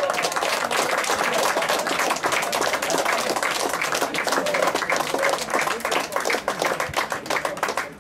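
A group clapping hands in applause, many claps overlapping, with some voices shouting underneath. The clapping thins out near the end.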